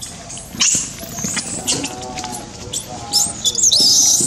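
Long-tailed macaques squealing and screeching: many short, high-pitched, bending calls that come thickest and loudest near the end.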